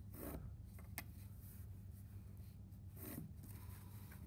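A pencil drawn along a wooden yardstick across paper: two faint strokes, one at the start and one about three seconds in, with a small tap about a second in. A low steady hum runs underneath.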